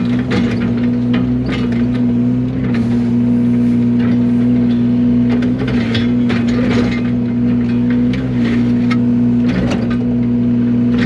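Yanmar mini excavator's diesel engine running steadily while the bucket is worked, with frequent short knocks and rattles from the machine.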